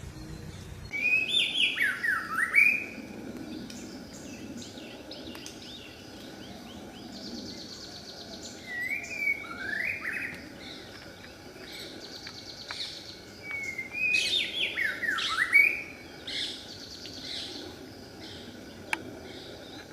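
White-rumped shama singing: three bursts of swooping whistled phrases, about a second in, around nine seconds in and around fourteen seconds in, with softer chattering notes between them.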